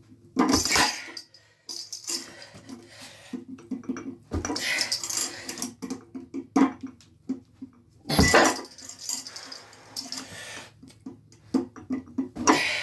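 Metal chains jangling and iron weight plates clanking on a loaded pin held by a chain handle, in several sharp bouts, with the lifter's strained grunts and breathing between them.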